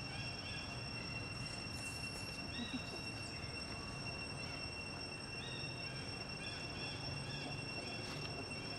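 Steady, high-pitched drone of insects such as cicadas or crickets, with short high chirps every second or so over a low background rumble.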